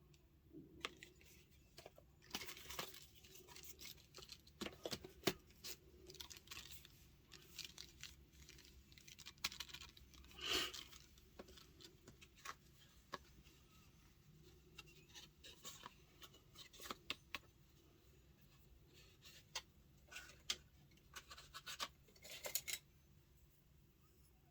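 Product packaging being unwrapped by hand: scattered soft crinkles, clicks and scratches, with a longer rustle about ten seconds in and another cluster of crackles near the end.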